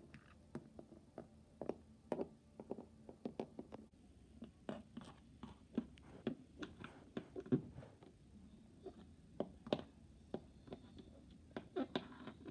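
Plastic toy horse figurines tapped and moved across a wooden floor: faint, irregular clicks and taps, a few each second.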